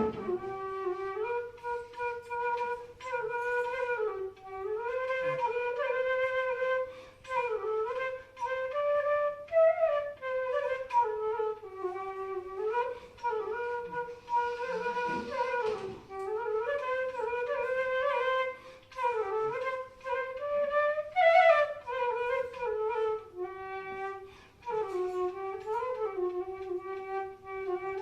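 Bansuri (Indian bamboo flute) playing a melody in the middle register, with slides and bends between the notes.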